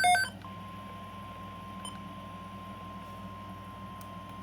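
NOAA Weather Radio warning alarm tone: a single steady tone near 1050 Hz that starts about half a second in, just after a burst of rapid pulsed beeps cuts off, with a faint low hum underneath.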